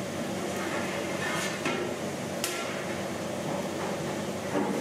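Steady food-stall kitchen background noise with a few sharp knocks between about one and a half and two and a half seconds in, the last one the sharpest.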